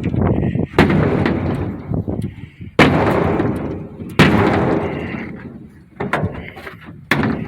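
Heavy blows knocking a hole in the wall of an old chicken coop: about five loud impacts a second or so apart, each followed by a trailing rattle.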